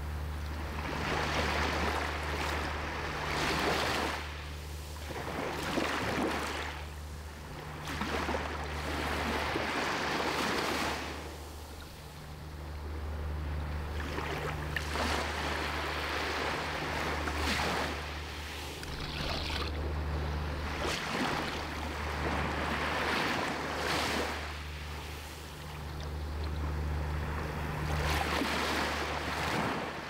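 Small sea waves breaking and washing up a sandy beach, the surf swelling and easing every few seconds, with a steady low rumble underneath.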